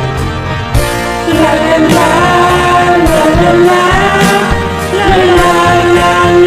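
Background music from a pop ballad: an instrumental passage with full backing, joined about a second in by a gliding lead melody.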